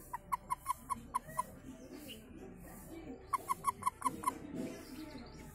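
Toad held in a hand giving short, quick chirps in two runs of about seven, roughly five a second.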